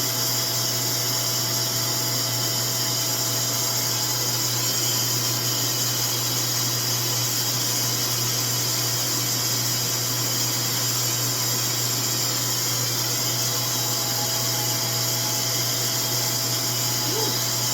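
RevAir reverse-air hair dryer running steadily, its motor sucking a section of hair into the wand and blowing air through it. The rush of air and the low motor hum stay constant throughout.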